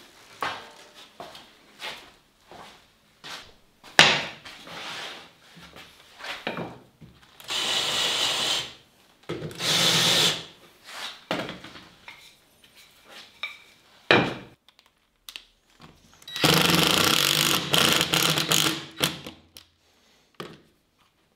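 Woodworking at a bench: wooden blocks knocked and set down, a Ryobi cordless drill boring into a wooden block in two short runs about eight and ten seconds in, and a Ryobi power sander running for a few seconds near the end.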